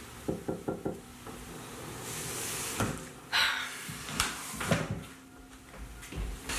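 Knuckles knocking on a wooden front door: four quick raps, then another single knock. A few louder thumps and a brief rushing noise follow later.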